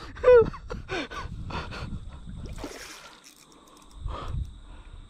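A man gasping and breathing hard in excitement, with a short voiced exclamation right at the start. A low muffled rumble on the microphone about four seconds in.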